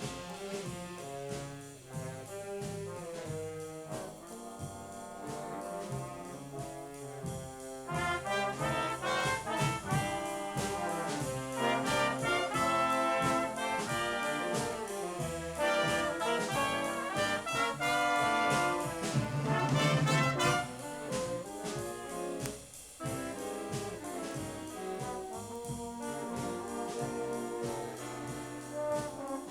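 A junior high school stage band playing big-band jazz, with trombones and trumpets carrying the ensemble.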